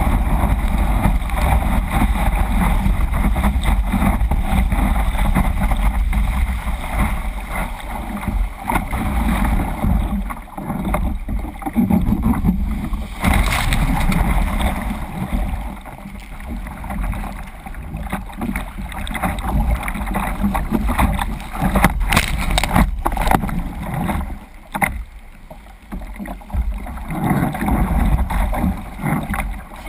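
Ocean water rushing and splashing around a surf kayak's bow as it punches through and rides breaking waves, heard close on the bow-mounted camera. A few sharp splashes stand out about halfway through and again some seconds later.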